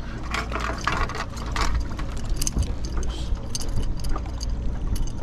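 Irregular clicks and rattles, like gear being handled, over a steady low rumble.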